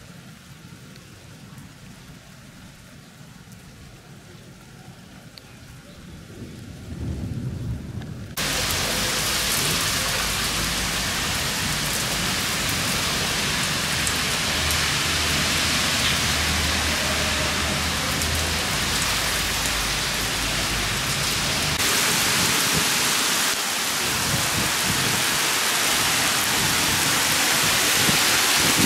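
A faint low rumble builds for several seconds, then heavy rain comes in suddenly about eight seconds in: a dense, steady downpour in a severe thunderstorm, with low rumbling underneath.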